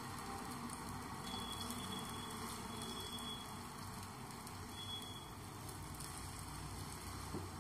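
Hot oil with mustard seeds sizzling in a pan as rava uttapam batter is ladled in and spread, a steady hiss with fine crackle. A light tap comes near the end.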